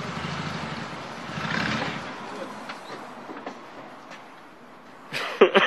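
Toyota off-road truck's engine sound fading low, then about five seconds in a short loud burst with a falling whine as the engine is cranked, just before it catches.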